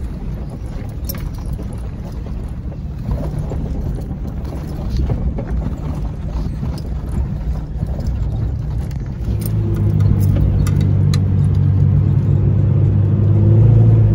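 Off-road Jeep engines working at crawling speed: a rough, uneven low rumble with scattered clicks, then about nine seconds in a louder, steady engine drone.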